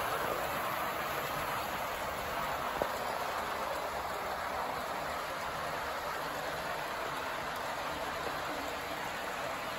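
Model train running on its track: a steady whirring rattle of the locomotive's motor and the wheels of a long string of freight cars rolling over the rails, with a single click about three seconds in.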